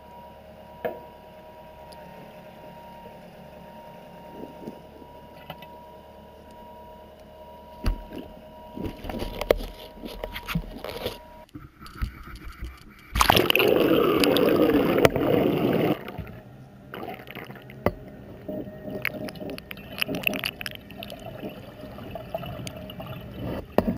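Water noise and knocks around a fishing boat's gill net, starting over a steady hum. About halfway through comes a loud rush of water noise lasting a few seconds, followed by uneven sloshing and knocking.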